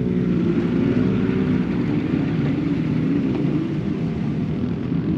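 Engines of off-road pickup trucks and SUVs driving past, a continuous low engine drone whose pitch wavers slowly.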